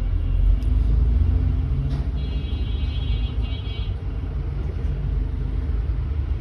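A steady low rumble, with a faint high-pitched whine for about two seconds in the middle.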